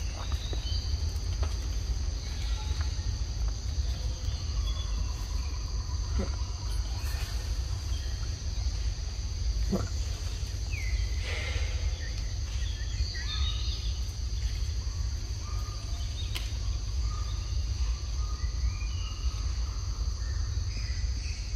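Forest ambience: insects chirring steadily in a high pitch, with faint scattered chirping calls, a few light clicks and a steady low rumble underneath.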